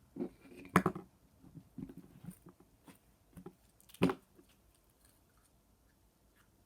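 Slime being poked and squished in the hands, giving a scatter of soft wet clicks and pops, with two sharper pops about a second in and about four seconds in.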